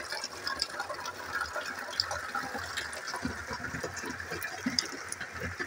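Rainwater pouring in a steady stream from a roof drainpipe and splashing into a plastic barrel, with many small scattered drips.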